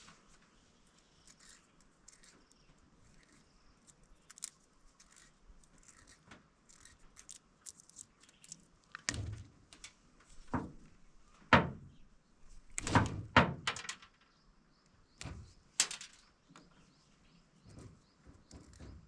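Scattered clicks and knocks, with a cluster of louder thuds from about nine to sixteen seconds in.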